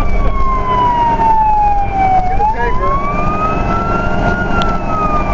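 Fire engine siren wailing in a slow rise and fall, heard from the truck's cab over the engine and road noise: falling for about two seconds, rising again until past four seconds, then starting to fall once more.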